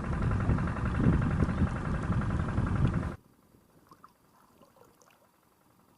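A motor engine running steadily with a low rumble, cut off abruptly about three seconds in, then near silence with a few faint ticks.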